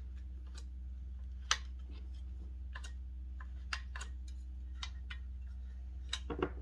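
Scattered sharp clicks and taps as a Bosch CS10 circular saw's bevel adjustment is worked by hand, about six in all, the loudest about a second and a half in, over a low steady hum.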